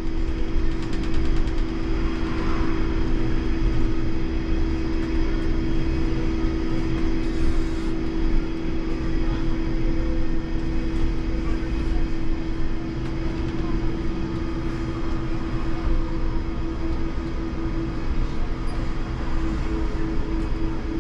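Inside the cab of an IMC Hess Lightram 19 DC electric trolleybus on the move: a steady electric hum from the drive over a constant road and tyre rumble. Near the end the hum begins to pulse evenly.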